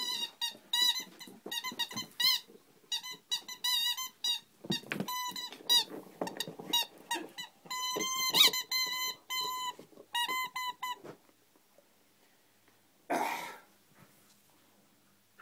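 A dog's squeaky toy squeaking quickly and irregularly as the dog bites it, many short squeaks in a row that stop about eleven seconds in. A short burst of noise follows a couple of seconds later.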